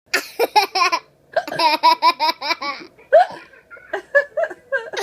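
A small child laughing hard: two long runs of quick, high-pitched laugh pulses in the first three seconds, then shorter bursts of laughter toward the end.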